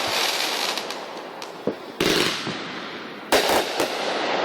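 Consumer fireworks going off: a sharp bang about two seconds in trailing into a crackling hiss, then another bang followed by a few quick pops a little after three seconds.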